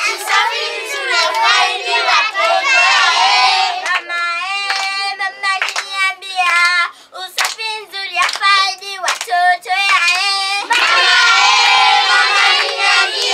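Children singing together, with rhythmic hand claps at about two a second partway through.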